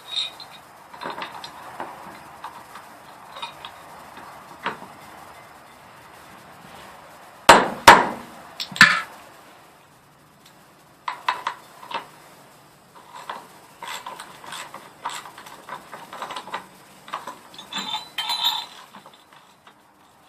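Tools and metal hinge hardware being handled on a wooden gate: scattered clinks and light knocks, with three loud knocks in quick succession about halfway through.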